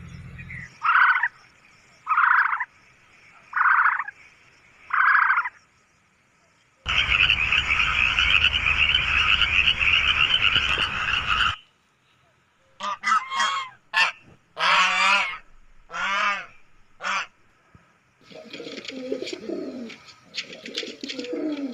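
A run of separate animal calls: four short calls in the first five seconds, then a frog calling for about four and a half seconds, then several short pitched calls, and near the end the low cooing of feral pigeons.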